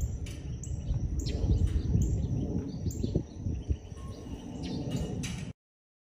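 Short bird chirps repeating every second or so over a strong, uneven low rumble; everything cuts off abruptly near the end.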